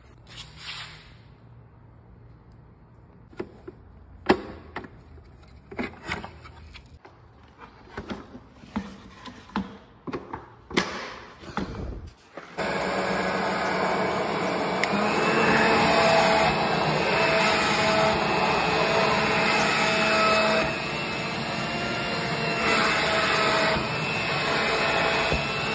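Clicks and knocks of plastic parts being handled and fitted, then about halfway through a BLACK+DECKER corded electric blower/vacuum, set up with its vacuum tube and collection bag, starts up abruptly. Its motor and fan run with a loud, steady rush and a steady whine, dipping briefly in level about two-thirds of the way in.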